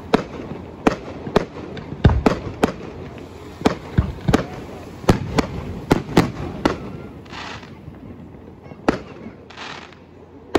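Fireworks display: aerial shells going off in a quick series of sharp bangs, about two a second, for the first seven seconds. After that the bangs come one at a time, mixed with a few short hissing bursts.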